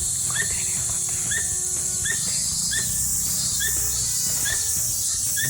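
Cicadas droning: a steady high-pitched hiss, with a short chirp repeating a little more than once a second.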